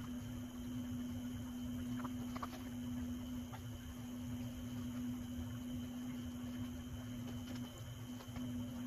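Steady low electrical hum, with a few faint rustles and clicks of clothing being pulled off.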